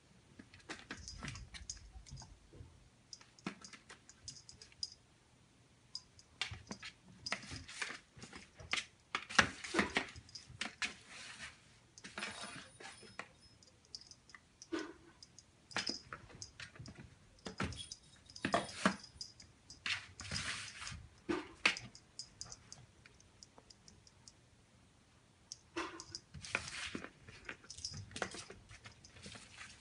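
A kitten pawing at a ball inside a small plastic box and sliding the box over a wooden floor: irregular clusters of clicks, knocks and scrapes, with quieter gaps between bouts.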